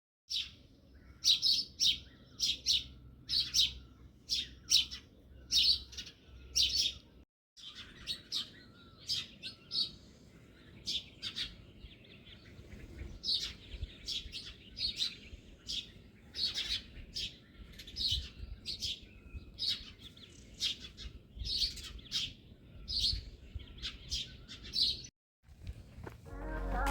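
Songbird chirping over and over, short high notes about one or two a second, with the sound cutting out briefly twice. Music fades in at the very end.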